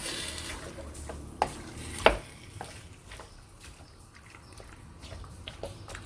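Chicken frying in oil in a pan and being stirred: a sizzle that fades over the first second, then two sharp knocks of the utensil on the pan about one and a half and two seconds in, with scattered light ticks after.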